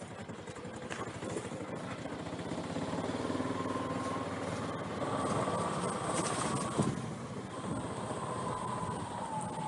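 A motor vehicle driving past: its engine hum grows louder, then drops in pitch and fades as it goes by. A single sharp knock sounds about seven seconds in.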